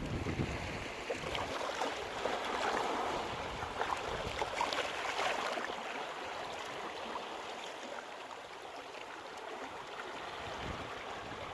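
Sea waves breaking and washing onto the shore: a low surge right at the start, then a hissing wash of foam that thins out and quietens in the second half.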